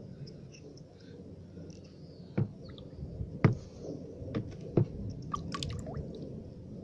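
A few sharp clicks and light taps from a small shell being handled in the fingers, with a quick run of fainter ticks afterwards, over a low rumbling handling noise.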